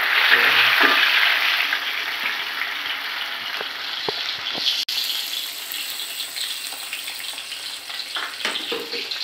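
Blended chili, shallot and garlic spice paste sizzling as it hits hot oil in a pan and is stirred with a metal spoon. The sizzle is loudest at the start and slowly dies down, with a few light spoon clicks near the middle.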